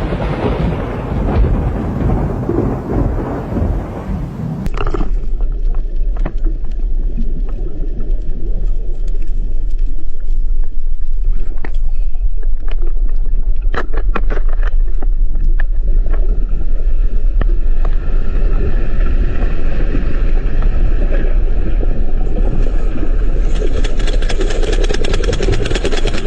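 Deep, continuous underwater rumble picked up by an underwater camera's microphone, presented as the sound of an underwater earthquake, with scattered clicks in the middle.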